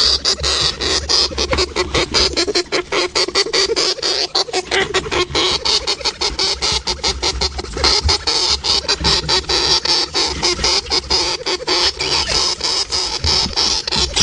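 A hamster moving about inside a jar: its claws make a dense, irregular run of quick scratches and clicks.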